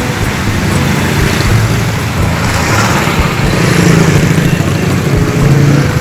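Road traffic close by, with motorcycles and cars driving past and their engines running steadily.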